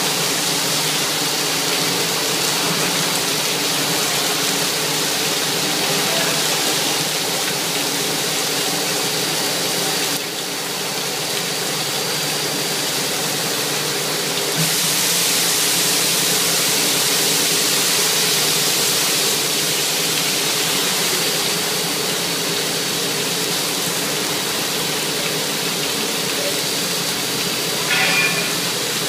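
Water jetting from a pneumatically operated CIP spray nozzle and splashing across the inside of a tank, a steady rushing hiss with a low steady hum underneath. The spray dips slightly about a third of the way in, gets louder about halfway, and there is a brief louder sound near the end.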